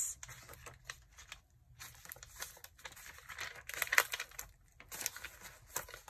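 Paper pages of a handmade junk journal being turned and handled: soft rustling and crinkling, uneven, with the sharpest rustle about four seconds in.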